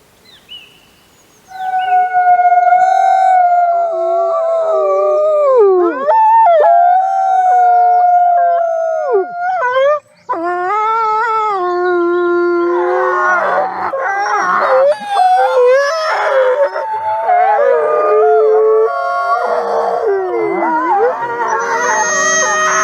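Wolves howling: a long, steady howl that falls in pitch at its end, then another lower howl after a brief pause. From about halfway on, several wolves join in a chorus of overlapping howls at different pitches.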